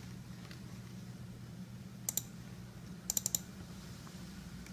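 Sharp clicks from operating a computer: a pair about two seconds in, then a quick run of four about a second later, over a faint steady low hum.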